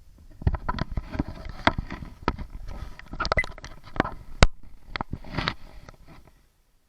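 Kayak and paddle on the water: irregular splashes and hollow knocks of the paddle against the hull, dying away near the end.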